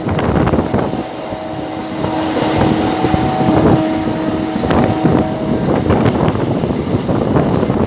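Railway locomotive horn held in one long continuous blast, a steady chord that stops about five and a half seconds in. Under it is the running rumble and wheel clatter of the accelerating train, with wind on the microphone.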